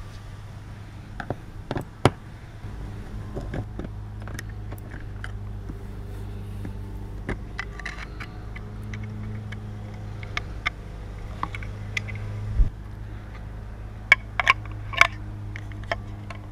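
Hand screwdriver and the plastic camera housing clicking and scraping as the housing's screws are backed out and the housing is handled. Scattered sharp clicks, the loudest about two seconds in, near twelve seconds and a cluster near the end, over a steady low hum.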